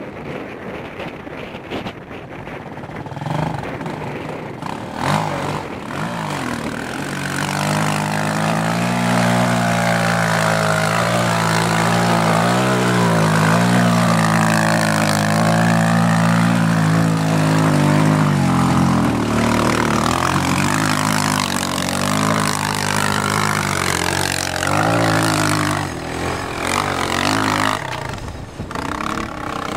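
Bashan 250 quad's engine revving as it ploughs through a muddy pond, with water splashing. The engine pitch rises and falls under throttle, louder from a few seconds in, and it fades near the end as the quad pulls away.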